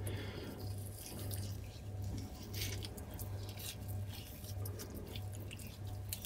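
Soft wet squishing and faint scattered ticks of hands pulling a half-frozen mackerel apart along the backbone into fillets, over a low steady hum.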